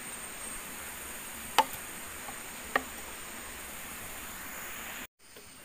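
Two sharp knocks a little over a second apart as a green bamboo tube is handled and set on the ground, over a steady drone of forest insects with a thin high tone. The sound drops out for a moment near the end.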